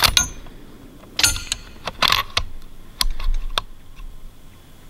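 Gear handled close to the microphone: a string of sharp clicks and light metallic clinks in small clusters, stopping about three and a half seconds in.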